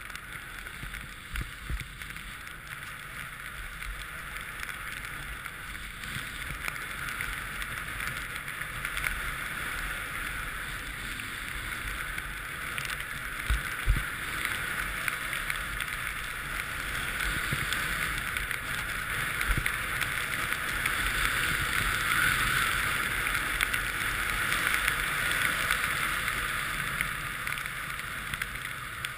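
Snowboard sliding and carving over groomed snow, a steady scraping hiss, with wind rumbling on the microphone. It grows louder through the second half, with a few knocks, the sharpest about halfway through.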